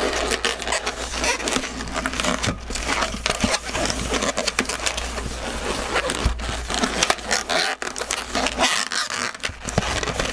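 Inflated orange 260 latex modelling balloons squeaking and rubbing against each other as they are twisted into bubbles and folded into loops, in a dense, irregular run of squeaks and scrapes.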